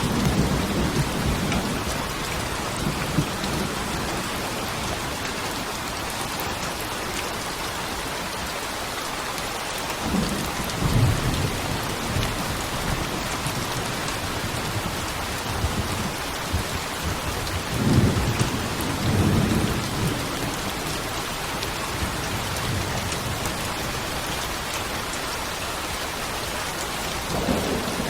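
Steady heavy rain with low rolling thunder that swells up and fades several times: about ten seconds in, again around eighteen seconds, and near the end.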